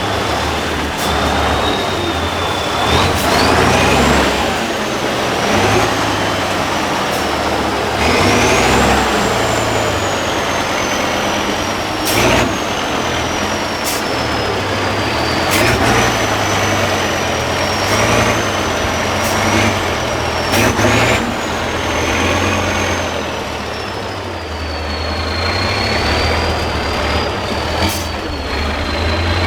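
Tatra 6x6 truck's diesel engine working hard over rough ground, with a deep rumble and a high whistle that climbs sharply and then slowly sinks, over and over as the throttle is opened. Sharp knocks and clunks come every few seconds.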